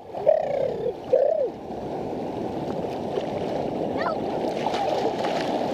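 Sea water sloshing and splashing against a camera held right at the surface, a steady churning noise. A voice calls out briefly at the start.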